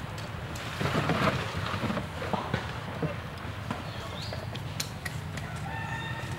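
Knocks and clatter of bamboo poles as a bamboo frame is handled, with a rooster crowing near the end.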